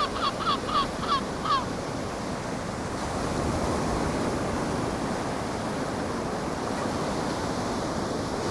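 A seagull calling in a quick series of short notes, about four a second, that stops after about a second and a half. Underneath, ocean surf rushes steadily.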